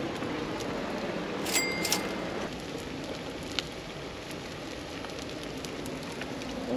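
Small wood fire crackling with a steady hiss as whole fish sizzle over it in a wire grill basket, with a few sharp clicks about a second and a half in.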